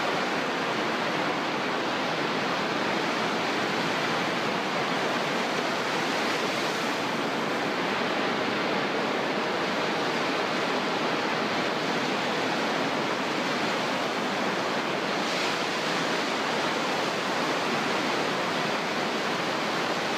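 Ocean surf breaking and washing up a sandy beach, a steady even rush of waves.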